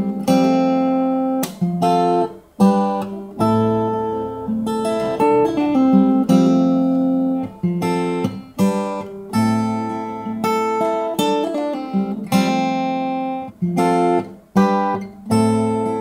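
Seagull S6 Spruce acoustic guitar, with a solid spruce top and wild cherry back and sides, playing a chord progression. A chord is struck about once a second and left to ring out, with single notes changing in between.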